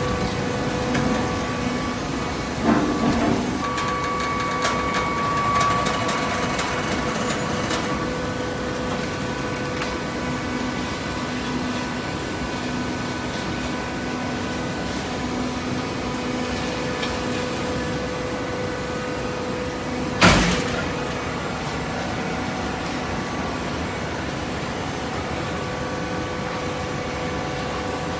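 Hydraulic baling press running with a steady electric-motor and pump hum, with a few light knocks early on and one sharp loud clank about twenty seconds in.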